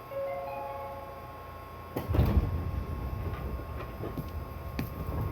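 The passenger car's door chime, a short run of rising tones, then the train's sliding doors moving and meeting with a loud thud about two seconds in, followed by a low rumble from the car.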